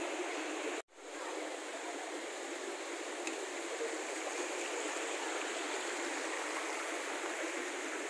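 Steady rush of a rocky jungle river flowing over stones. The sound cuts out for a moment about a second in, then returns.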